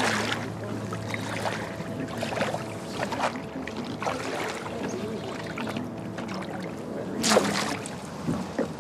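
Shallow water splashing and sloshing as people wade in and handle a wooden canoe at the water's edge, with one louder splash about seven seconds in.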